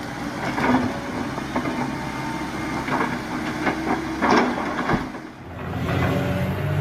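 Excavator's diesel engine running, with several loud knocks and crunches from the machine at work. The sound drops away briefly near the end, then a steady low engine drone takes over.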